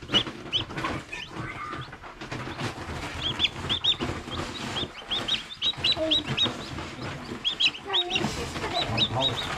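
Day-old chicks peeping: a rapid string of short, high peeps, growing thick from about three seconds in.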